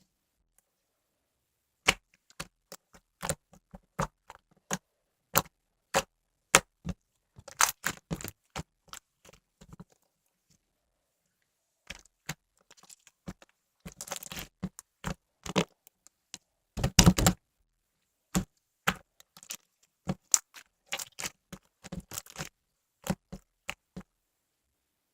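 Slime being pressed and squished by hand, giving irregular sharp clicks and crackles with short pauses between. The crackling comes in denser runs, the loudest burst about two-thirds of the way through.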